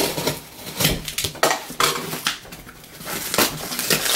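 Cardboard shipping box being handled and opened: irregular scrapes, rustles and knocks of cardboard on a wooden table.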